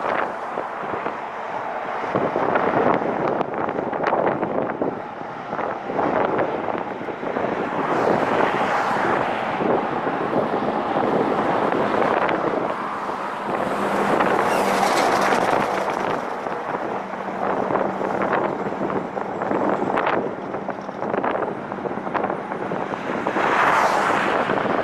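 Wind rushing over the microphone while riding, mixed with road and traffic noise. A faint steady hum rises partway through and fades again.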